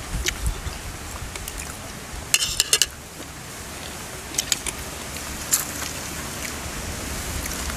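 Metal spoons clinking against bowls while people eat: a quick cluster of clinks about two and a half seconds in, then a few single clinks later, over a steady background hiss.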